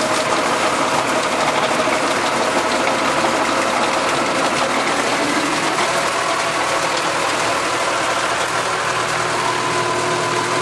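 Tractor engine running steadily while its rear-mounted rotavator works the ground.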